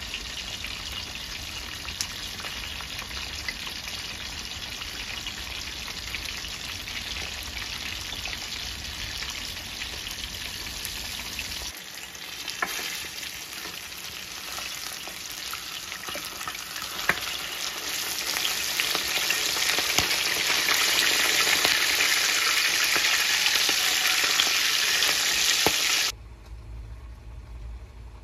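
Whole fish shallow-frying in hot oil in a pan: a steady sizzle with scattered pops that grows louder about two-thirds of the way through. Near the end it cuts off suddenly, leaving a quiet low hum.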